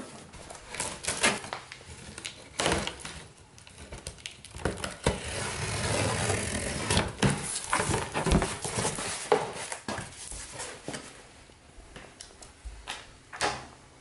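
Pocket knife slitting packing tape on a cardboard box, with a longer scraping stretch in the middle, and scattered knocks and rustles of cardboard as the box is handled and its flaps are opened.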